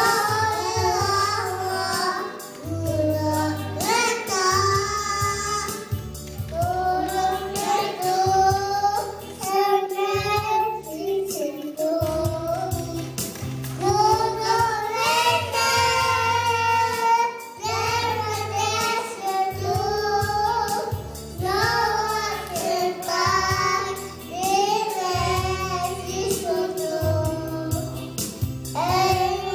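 Two young girls singing a song together into microphones, accompanied by an electronic keyboard with a steady bass line underneath.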